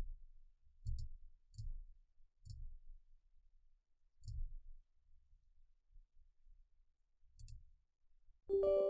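Computer mouse buttons clicking, about six separate clicks a second or more apart, while clicking through a software setup wizard. Near the end a short electronic chime from the computer sounds.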